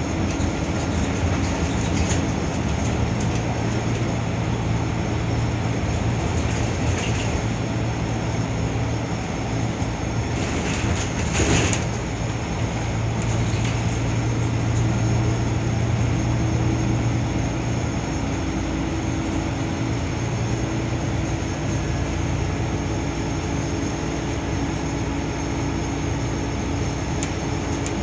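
Volvo B12BLEA articulated bus's diesel engine and drivetrain running under way, heard from inside the cabin as a steady drone with road noise. There is a brief knock near the middle, and the engine note changes about two-thirds of the way through.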